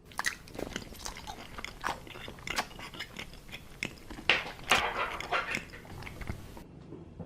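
Close-miked ASMR crunching and chewing mouth sounds of someone pretending to eat a modelling-clay chicken drumstick. There is a dense crackle of bites with the loudest crunches a little past the middle, then it cuts off abruptly.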